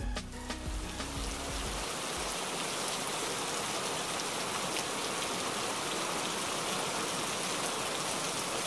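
Heavy rain sound effect: a steady, even hiss of rainfall. Low background music fades out beneath it in the first two seconds.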